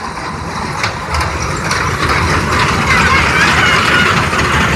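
A small park ride train with open carriages running on its curved track and passing close by. Its running noise grows louder from about a second in and is loudest about three to four seconds in, as the carriages go past.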